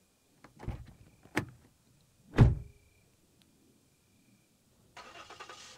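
Car door opened and shut, heard from inside the car: a latch clunk and a click, then the door slamming closed, the loudest sound. A faint steady hiss starts near the end.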